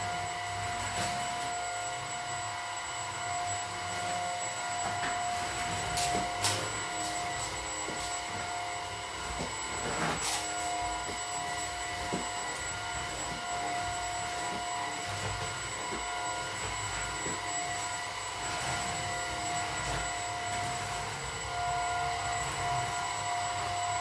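Maircle S3-Mate cordless stick vacuum running steadily with its floor brush on tile, a constant high-pitched motor whine over a rushing air noise. A few brief clicks sound about six and ten seconds in.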